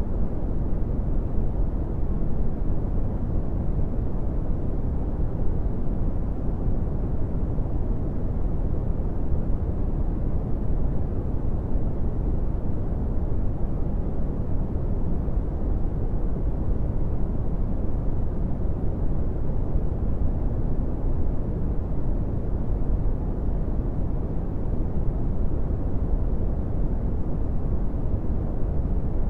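Steady brown noise: a constant, deep rumbling hiss with most of its energy in the low end and little above about 2 kHz, unchanging throughout.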